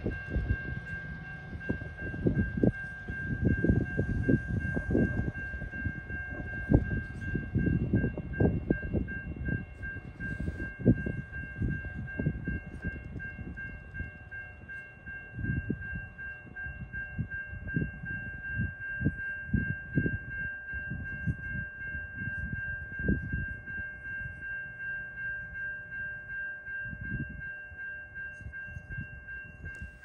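Long freight train's wheels clattering over the rail joints in irregular knocks that slowly fade as the train moves away. A steady high-pitched whine from the wheels on the rails runs beneath it.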